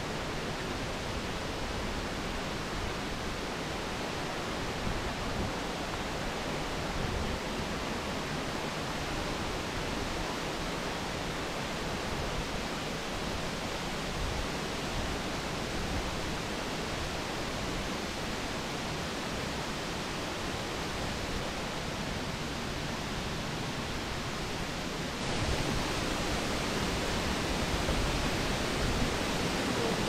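Steady rush of water from a waterfall. It gets abruptly louder about five seconds before the end.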